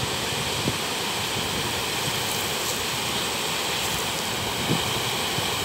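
Water spilling over a low concrete weir and running through a shallow rocky riverbed: a steady rushing.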